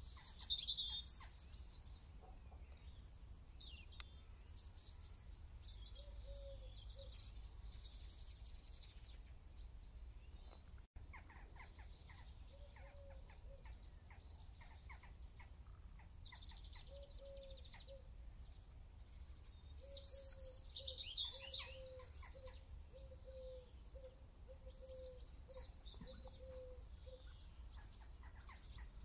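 Faint birdsong ambience: several birds chirping and trilling, with louder bursts of calls at the start and again about twenty seconds in, and a lower note repeating about once a second in the second half.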